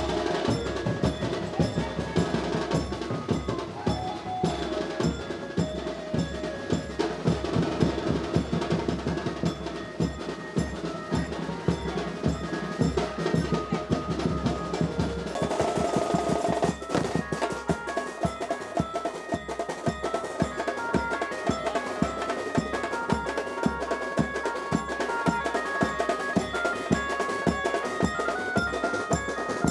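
Instrumental music with fast, steady drumming under a melody line, shifting to a new section about halfway through.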